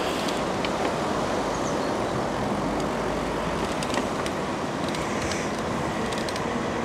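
Steady rushing noise of riding a bicycle: wind on the microphone and tyres rolling on the path, with a few faint clicks.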